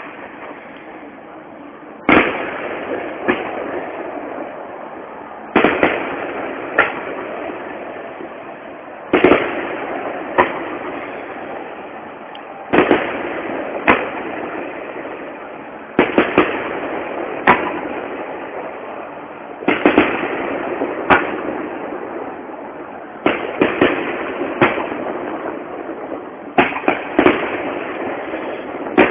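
Aerial firework shells bursting in a steady sequence: eight loud bangs about three and a half seconds apart, each followed by one or two further cracks and a long fading echo.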